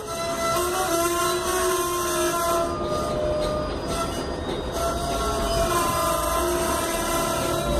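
Steel wheels of slow-rolling railroad tank cars squealing against the rails, several high tones that come and go and shift slightly in pitch over the low rumble of the cars rolling past.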